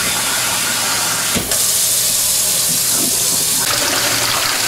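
Tap water running from a faucet hose into a metal pot of potatoes and eggs, a steady rushing hiss as the pot fills. A brief break comes about a second and a half in, after which the flow sounds fuller for a couple of seconds.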